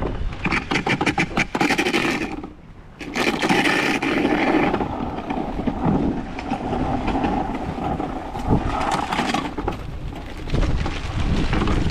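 Irregular scraping and rustling of dumped trash and a plastic bag being handled and dragged, with a run of sharp clicks in the first couple of seconds and a short lull near three seconds in.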